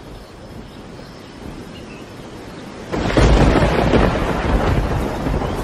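Faint, even ambience at first; about three seconds in, a thunderstorm breaks in suddenly with a loud, deep rolling rumble of thunder that carries on.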